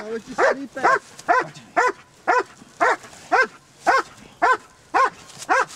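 Leashed police dog barking steadily, about two barks a second, as it holds a man at bay.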